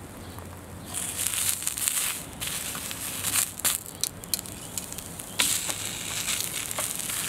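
Red onion slices sizzling on a hot, oiled flat-top griddle, with sharp clicks of metal tongs against the plate as slices are laid down. The sizzle rises about a second in.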